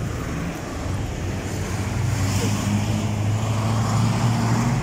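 A motor vehicle's engine running with a steady low hum, amid street traffic noise.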